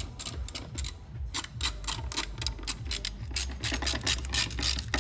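Hand socket ratchet clicking as it turns a bolt on a skid-plate mounting bracket. The clicks start sparse and then come in a quick, steady run of about five a second.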